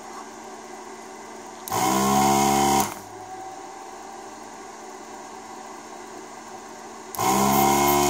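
An electric vacuum desoldering gun's pump buzzing twice, about a second each time, a couple of seconds in and again near the end, as it sucks the solder off a capacitor's joints.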